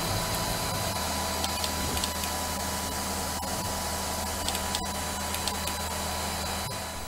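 Steady mechanical hum and hiss from a nearby running machine, with a few faint clicks and rustles of book pages being handled and turned.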